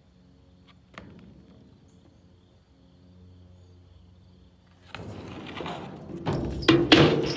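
Skateboard wheels rolling over a skate ramp, starting about five seconds in, with a few loud clacks and thumps of the board near the end.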